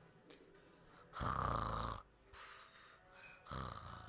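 A sleeping person snoring: one loud snore about a second in, lasting under a second, and a second, softer snore beginning near the end.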